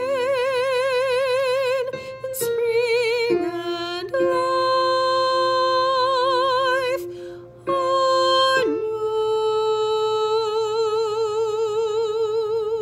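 An alto voice singing a run of long held notes with a wide, even vibrato, moving to a new pitch every few seconds. A steadier lower note is held beneath it through the middle, and there is a short break about seven seconds in.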